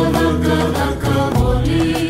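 Gospel hymn music: bass guitar and keyboard under voices singing, played steadily.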